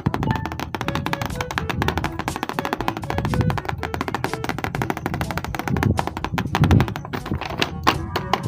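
Background music with fast percussion: rapid, even wood-block-like taps over held tones and a low beat.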